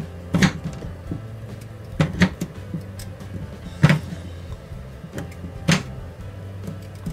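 Small knife cutting a peeled potato into cubes on a wooden cutting board: sharp, irregular knocks as the blade meets the board, about five in all, over a steady low hum.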